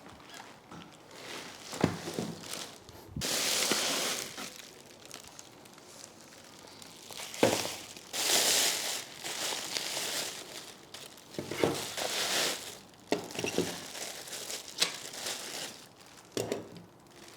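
Packing material crinkling and rustling in irregular bursts as a boxed model is unpacked, with a few sharp knocks.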